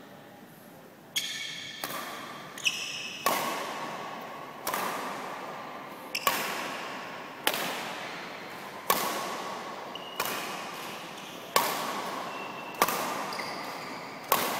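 Badminton rackets striking a shuttlecock in a steady rally: about a dozen sharp hits, roughly one every second and a half, each echoing around the sports hall.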